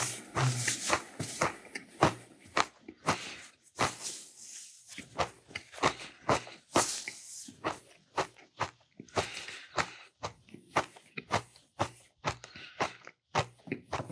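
A person chewing food close to the microphone: a quick, irregular run of mouth smacks and clicks, several a second.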